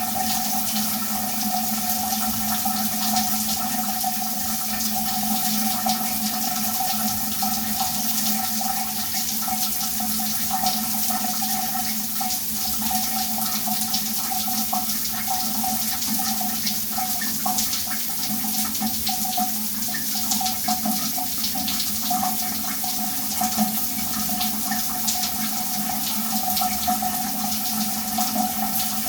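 Shower running steadily: water spraying and splashing with a constant hiss and a steady resonant hum, sounding like a small tiled room.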